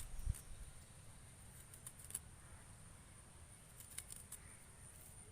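A metal spoon scraping the white flesh of a coconut, giving faint, irregular scratching clicks; a low thump sounds just after the start.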